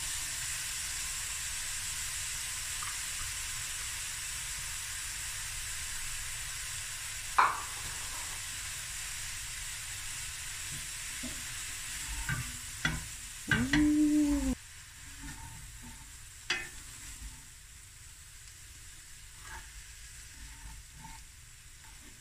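Fried rice sizzling in a stainless steel pan while a wooden spatula knocks and scrapes through it. The sizzle drops off suddenly about two-thirds of the way through, leaving quieter scraping and taps.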